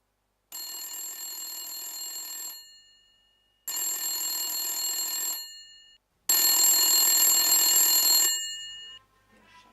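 A telephone ringing with a bell-like ring: three rings of about two seconds each, each one louder than the one before.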